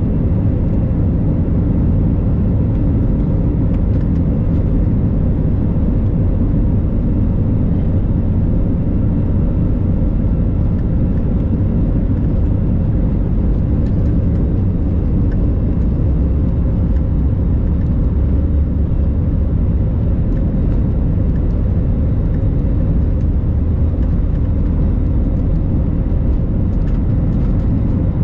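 Steady low roar of an Airbus A321's jet engines and airflow heard inside the cabin at a window seat, during the takeoff run and initial climb.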